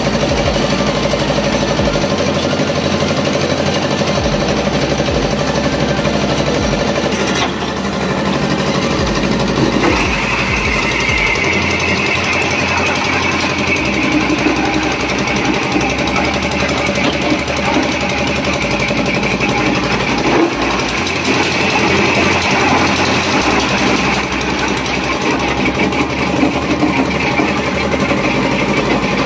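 Engine-driven, belt-driven ice-crushing machine running and grinding blocks of ice into crushed ice, a loud steady mechanical clatter. Its pitch shifts about eight to ten seconds in, with a higher grinding note from then on.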